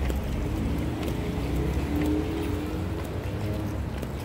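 City street traffic: a steady low rumble, with a passing vehicle's engine hum rising slightly in pitch through the middle.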